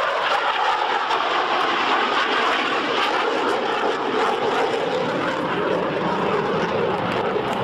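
Saab JAS 39 Gripen fighter's jet engine, a steady loud roar of jet noise as the aircraft flies its display overhead.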